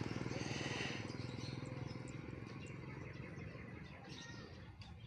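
A motorcycle engine fading steadily into the distance, with faint bird chirps over it.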